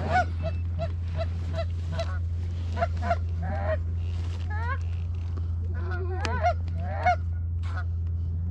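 Canada geese honking and clucking in quick succession, many short calls, some overlapping, over a steady low hum.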